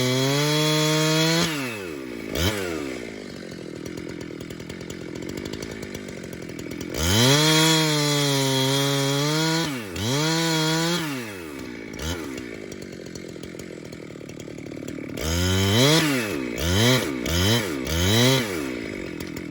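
Two-stroke Jonsered chainsaw held at full throttle, dropping to idle, revved up twice more, then given several quick throttle blips before settling back to idle.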